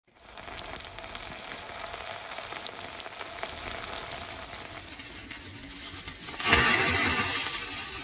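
Thick-cut bacon sizzling and crackling on a hot thick iron griddle. About six and a half seconds in, the sizzle suddenly grows much louder and fuller.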